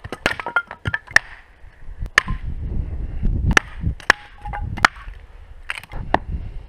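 Firewood being chopped and broken at a campsite: a series of about a dozen sharp, irregular wooden cracks and knocks, several in quick succession in the first second, then spaced a second or so apart.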